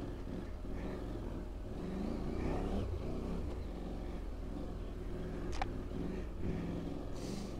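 KTM 790 motorcycle's parallel-twin engine running under throttle on a dirt track, the revs rising and falling. A single short, sharp click about five and a half seconds in.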